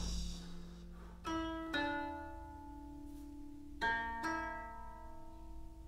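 Koto plucked slowly: two pairs of notes, the notes in each pair about half a second apart, each note ringing out and fading before the next pair.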